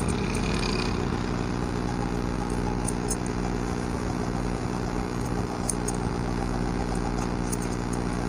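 A few sharp scissor snips cutting hair, over a steady low mechanical hum like a running engine or motor.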